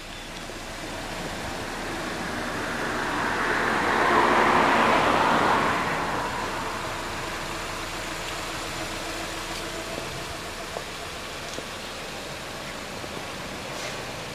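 Road traffic: a passing vehicle's tyre and engine noise swells to a peak about four to five seconds in and then fades, leaving a steady background of traffic.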